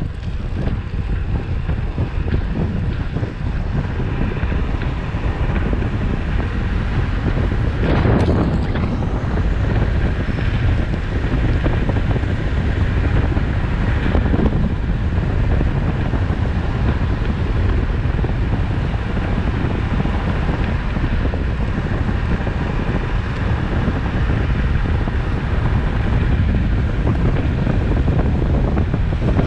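Steady wind rush buffeting the microphone of a road bike descending at speed, with a brief louder surge about eight seconds in and a smaller one around fourteen seconds.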